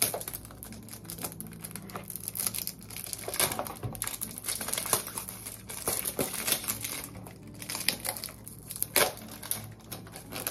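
Cardboard pregnancy test box being opened and handled by hand, with irregular crinkling and crackling of the packaging.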